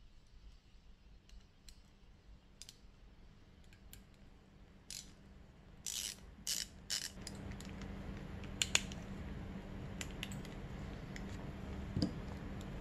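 Scattered light metal clicks and ticks of an Allen wrench working at the top-cap screws of a Keihin FCR carburetor, with a few sharper clicks in the middle. A low steady hum comes in about seven seconds in.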